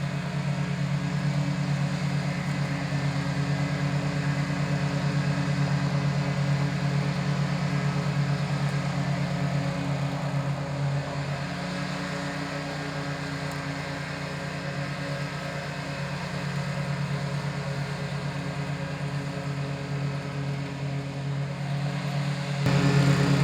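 Remote-control slope mower's petrol engine running steadily, then suddenly louder near the end.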